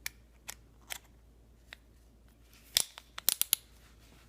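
Sharp metal clicks and clinks of a 10 mm socket and 1/4-inch extension being fitted onto a hex nut: a few single clicks, then a quick cluster of about five near the end.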